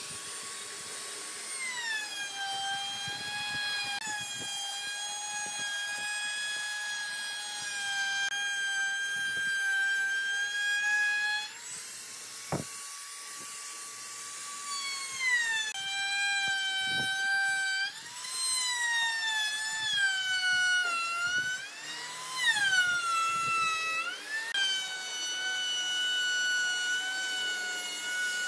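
Compact electric trim router running with a high whine. Its pitch drops and holds lower while the bit cuts along the edge of a hardwood tabletop, and rises again when the bit runs free, several times over.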